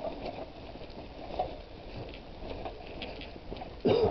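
Footsteps of a person walking on a tarmac path, about two steps a second, over steady wind and handling noise from a body-worn camera. A brief louder burst comes near the end.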